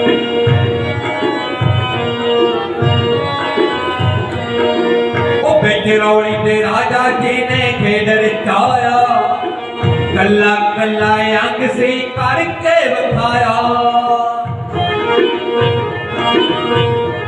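Live devotional Punjabi music over a PA: a steady hand-drum beat under sustained organ-like chords, with a male voice singing from about five seconds in until about three seconds before the end.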